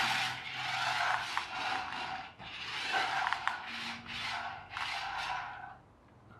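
Small toy radio-controlled car, a skid-steer model with each rear wheel driven separately, its electric drive motors whirring in several spurts of a second or two as it is driven about, falling quiet near the end.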